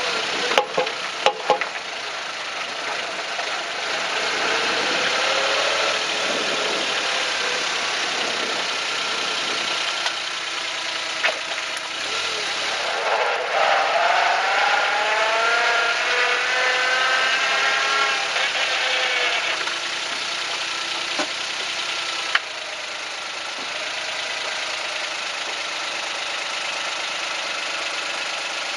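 Suzuki Jimny engine running with road noise, its pitch rising and falling as it is driven, with a cluster of sharp knocks about a second in and single knocks later. The owner is tracing an abnormal noise from the underbody that comes with some suspension strokes, and suspects a drive shaft or constant-velocity joint.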